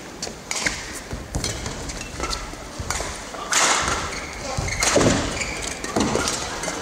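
Badminton singles rally: sharp racket strikes on the shuttlecock and shoe squeaks on the court floor, with two louder, longer bursts of noise from the hall about halfway through.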